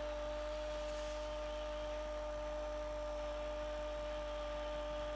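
Steady hiss with a constant hum at several pitches, unchanging throughout.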